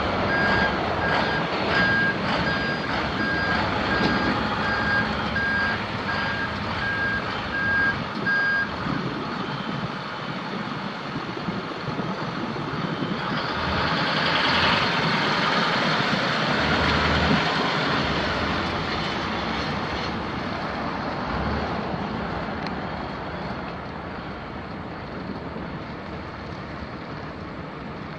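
Reversing alarm on a 2015 International TerraStar bucket truck, beeping at an even pace for the first nine seconds or so, over its MaxxForce 7 V8 diesel running. After the beeping stops, the engine and road noise swell around the middle, then ease off.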